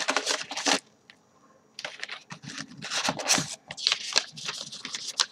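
Crumpled newspaper packing rustling and crinkling as hands dig through it in a cardboard box, then loose paper sheets being handled, with a short lull about a second in.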